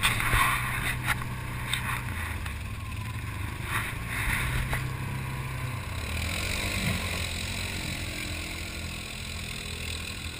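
ATV engine running steadily at low speed. About five seconds in the engine note changes and a hiss builds.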